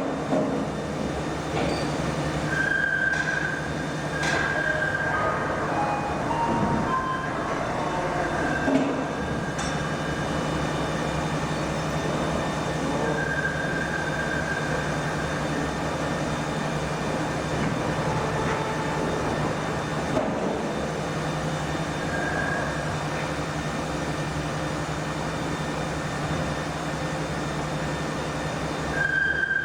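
Steady machinery hum of a mold workshop, with a few light clicks in the first several seconds and short high-pitched squeaks or tones now and then.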